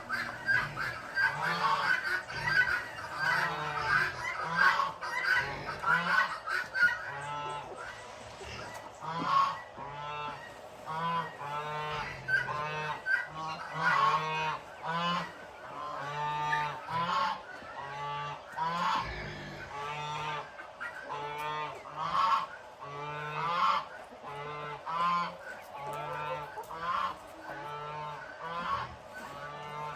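Geese honking over and over, many calls overlapping at first, then coming as separate honks.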